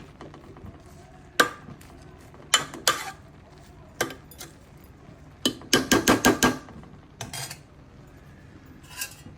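A metal spoon clinking and knocking against a cooking pot: single sharp clinks every second or so, and a quick run of about six knocks a little past halfway.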